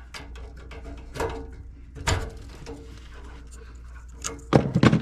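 Small clicks and rubbing from handling wire connectors on an HVAC control board, as wires are pulled off and moved across, with a louder clatter of knocks near the end over a steady low hum.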